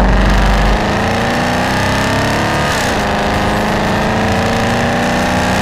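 Car engine running under way, its pitch climbing slowly as it accelerates, with a brief dip in pitch about halfway through.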